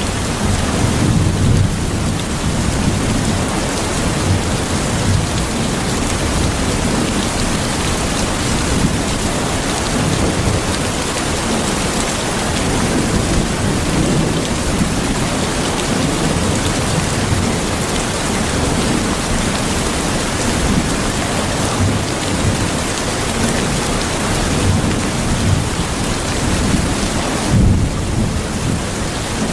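Steady heavy rain with a low, rolling thunder rumble underneath that swells and fades.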